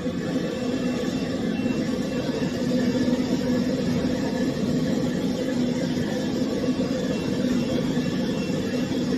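Pet grooming dryer running steadily: a constant blowing hum with a steady low tone.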